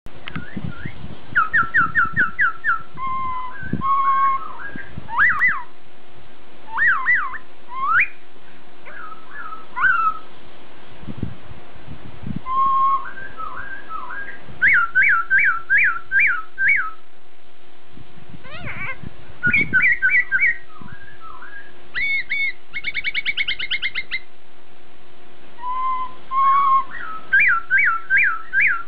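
Black-throated laughingthrush (poksai hongkong) singing loud clear whistles. It gives phrases of rapidly repeated notes, about five a second, between short gaps, with one fast trill partway through.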